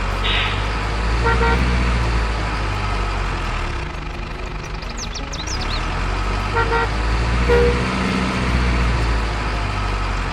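Model truck's engine rumble, steady and low, with short horn toots about a second in and again near seven seconds. A few high chirps come through around the middle.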